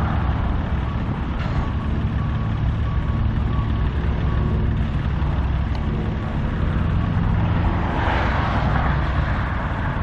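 Heavy diesel construction machinery running steadily with a low engine drone, and a reversing alarm beeping repeatedly through the first few seconds. A rush of hiss comes in about eight seconds in.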